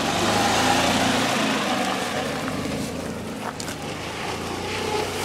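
Golf cart engine running steadily under load as the cart drives up a steep hill. It is loudest in the first second or two, then a little quieter.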